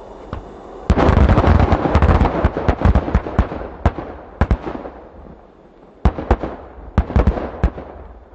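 A 200mm aerial firework shell bursting: a sudden loud blast about a second in, then a dense run of rapid sharp pops and bangs that thins into scattered pops, with another cluster of sharp bangs near the end.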